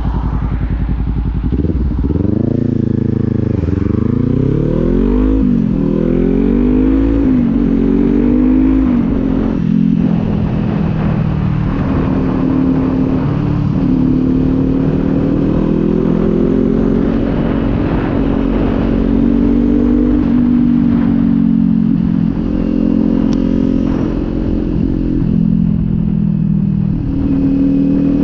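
Kawasaki Z400's 399 cc parallel-twin engine: it idles briefly, then pulls away with the revs rising and dropping back at each upshift, four or five times through the gears, and settles into a steady cruise.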